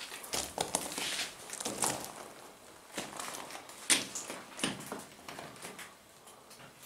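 Footsteps crunching and scuffing on loose gravel and rock inside a small rock cave, in an uneven run of steps, with one sharp crunch about four seconds in; the steps grow fainter near the end.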